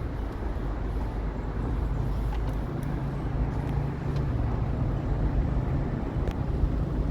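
Car driving, heard from inside the cabin: steady low engine and road rumble, with a low hum settling in a couple of seconds in.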